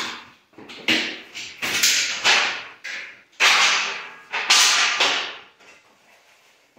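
Aluminium trim of a sliding shower door being pulled off the shower sill by hand: about five short bursts of metal scraping and rattling in quick succession, then much quieter about five seconds in.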